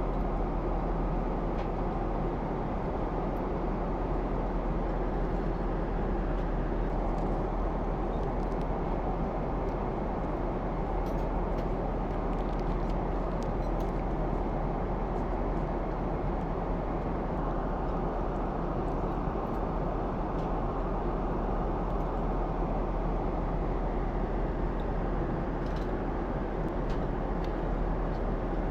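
Steady roar of an airliner cabin in cruise flight, an even rush of air and engine noise. A few faint light clicks, typical of tableware, sit over it.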